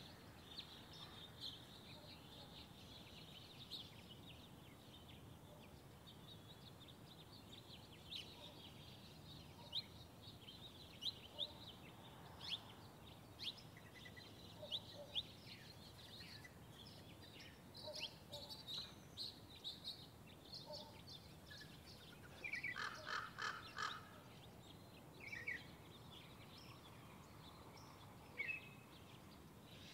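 Faint backyard birdsong: many short, high chirps, with a louder, harsher call repeated for about a second and a half about three quarters of the way through.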